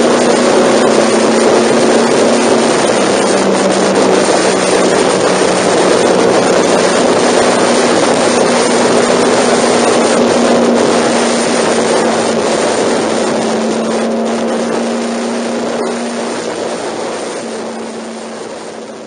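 Honda NC700's parallel-twin engine running steadily as the motorcycle cruises along the expressway, with wind rushing over the microphone. The sound fades out near the end.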